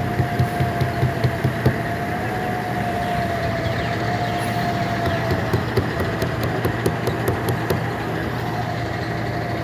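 Large coach bus's diesel engine running at low speed as the bus turns, with a low regular chugging for the first couple of seconds and a steady whine over it.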